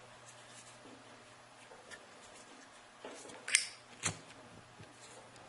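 A Zippo lighter handled during a trick: a brief rustle, then two sharp metallic lid clicks about half a second apart, with a fainter click earlier.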